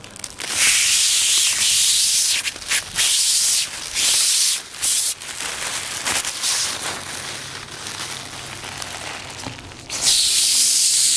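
Blue protective plastic film being peeled off a polycarbonate panel: several long, hissing pulls in the first five seconds, quieter rustling of the loose film, then another long pull near the end.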